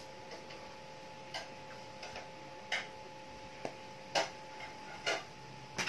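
A few light clicks and taps from handling a plastic tub of body butter, about five, spaced unevenly, over a faint steady hum.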